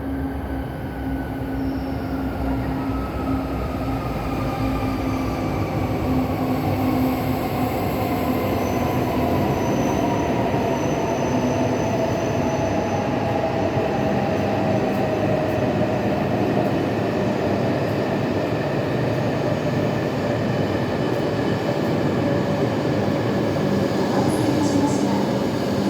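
Shinkansen bullet train slowing down: a steady rumble of running noise with an electric motor whine that falls slowly and steadily in pitch as the train decelerates toward a stop.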